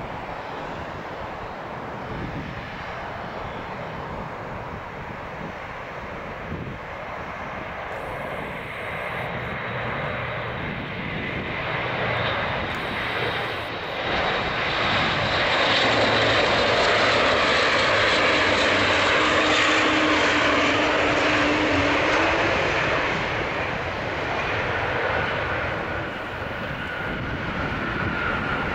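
An Airbus A400M's four TP400-D6 turboprop engines on landing approach. The propeller and engine noise grows steadily louder, is loudest for several seconds as the aircraft passes close by, eases off, then rises a little again as it reaches the runway.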